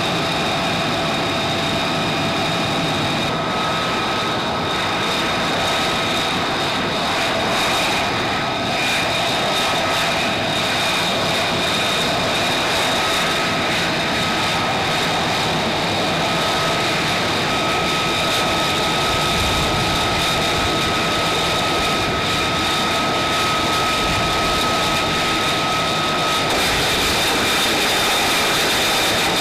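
F-35B Lightning II's F135 turbofan engine running steadily on the ground: a broad jet rush with a steady high whine over it.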